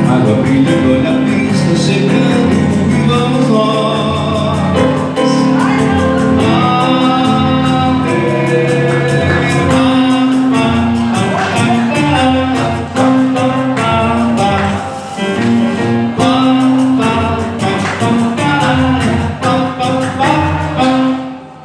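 Man singing a samba with guitar accompaniment, closing out the song with long held notes; the music drops away near the end.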